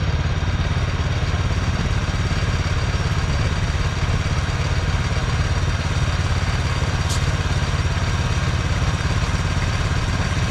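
Small sawmill engine on a Norwood LM30 portable bandsaw mill running steadily at an even speed, with no cutting load. About seven seconds in there is one brief high-pitched tick.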